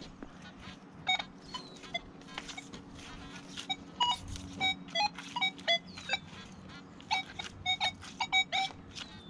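Nokta Legend metal detector sounding its target tones as the coil sweeps: an irregular run of short beeps, some low and some high, several a second, busiest in the second half.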